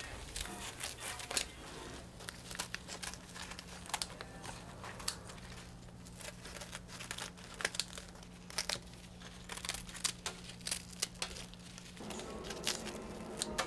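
Scissors snipping through the thin, crisp crust of overflowed batter around freshly baked bungeoppang, a run of irregular crackling snips and crunches.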